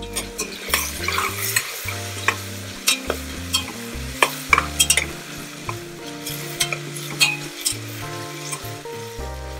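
Onions, curry leaves and green chillies sizzling in hot oil in a stainless steel pressure cooker, stirred with a metal spoon that clicks and scrapes against the pot many times.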